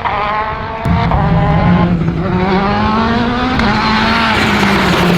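World Rally Car's turbocharged engine at full throttle: it gets suddenly louder about a second in, its pitch climbs for a few seconds, then drops away.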